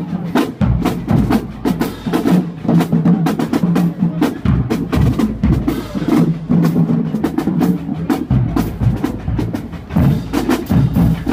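Marching band drumline playing a cadence: fast snare and stick clicks over bass drum hits.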